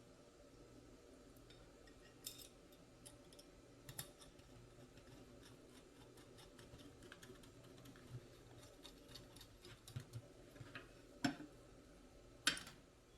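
Faint, scattered clicks and ticks of a screw being driven by hand with a screwdriver into a plastic RC truck bed-rack rail, with a few sharper taps, the two loudest near the end.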